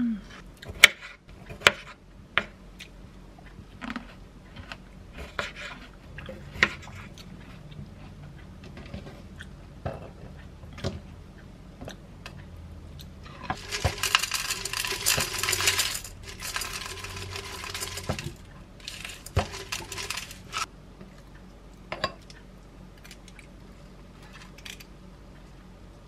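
A kitchen knife taps sharply on a wooden cutting board as green grapes are halved. About 13 seconds in, granola pours from a jar into a ceramic bowl with a dense rattle lasting several seconds. A few clinks of a scoop against a bowl follow near the end.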